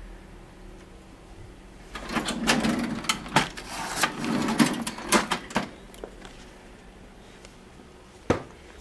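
Cash register drawer being rummaged, with coins and metal clips rattling and clinking for a few seconds starting about two seconds in. A single sharp click comes near the end.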